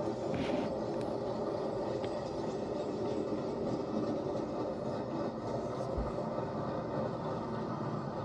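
Railway train running along the track, a steady rumble with a couple of short clicks about half a second in.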